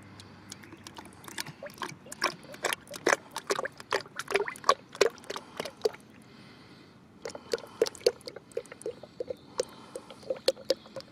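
Drained transmission oil poured from a black plastic container into a plastic pitcher, glugging in quick irregular pops as it pours. The pops ease off briefly about six seconds in, then resume.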